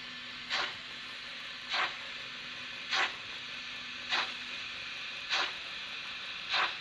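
Sound decoder of a Märklin HO model of the SBB Eb 3/5 steam locomotive playing slow steam chuffs, about one every 1.2 seconds, over a steady hiss and a faint hum.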